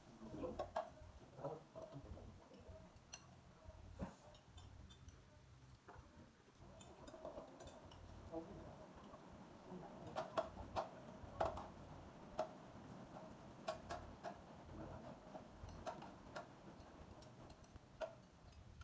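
Chopsticks and spoons clicking and clinking against ceramic bowls and plates during a meal: light, irregular taps, some with a short ring, a little louder from about ten seconds in.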